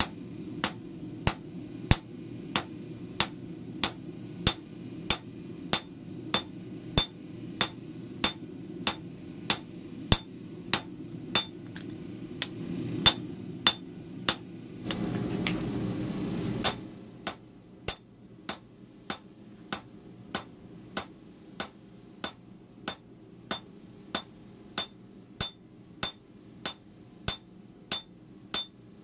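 Hammer blows forging steel on an anvil in a steady rhythm, about one and a half a second, each blow ringing. A steady low rumble runs underneath; it swells for a couple of seconds about halfway through and then drops to a quieter level.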